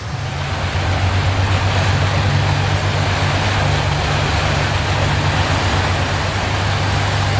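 Motorboat engine running under way, its low drone getting louder over the first second as the boat picks up speed, then holding steady under a loud rush of noise.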